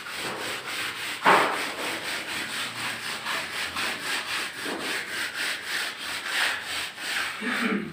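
A mason's hand tool rubbing and scraping over fresh cement render in quick, regular strokes, with one sharp knock about a second in.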